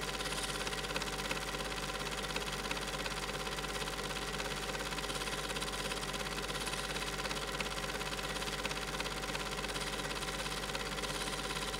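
Super 8 film projector running: a steady mechanical whirr with a fast, even clatter and a constant hum, unchanged throughout.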